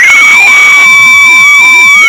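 A shrill scream from a schoolchild, held on one high pitch for about two seconds and sliding down as it ends. Cheering from a crowd of pupils is faint beneath it.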